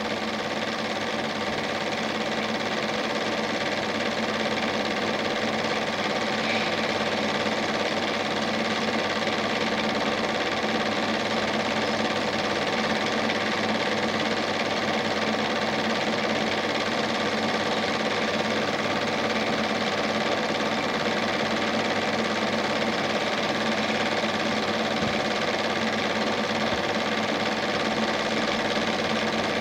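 Steady mechanical whirr of a Standard 8 cine projector running, picked up while the silent film was transferred to video.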